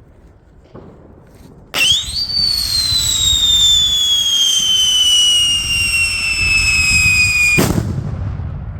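Firework whistler going off: a loud, piercing whistle starts suddenly about two seconds in, rises briefly, then slides slowly down in pitch for about six seconds and cuts off abruptly.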